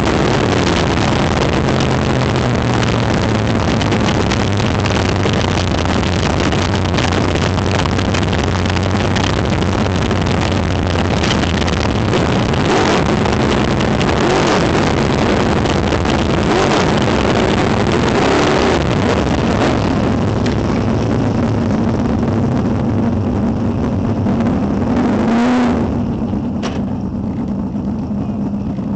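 Engine of a winged open-wheel race car heard from its onboard camera, running loudly at low speed. About 25 seconds in it gives a short rev, then drops to a quieter idle for the last few seconds.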